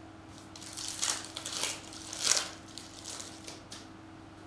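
Trading cards scraping and rustling as they are slid one over another in a hand-held stack, a handful of short slides with the loudest about two seconds in.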